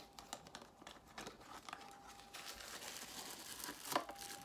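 Gift wrapping crinkling and rustling as a small present is unwrapped by hand, in light scattered crackles with a sharper crackle about four seconds in.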